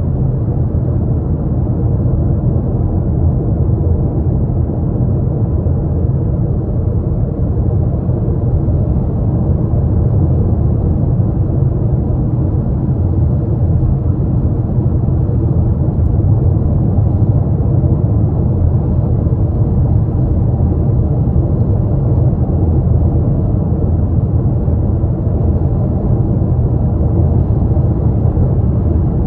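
Steady low rumble of a car cruising at highway speed, heard from inside the cabin: tyre, road and engine noise with no change in pace.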